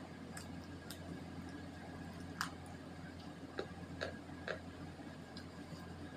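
Crunching bites of dry multani mitti (fuller's earth clay): scattered short, sharp crunchy clicks, about seven of them, the loudest about two and a half seconds in, over a low steady hum.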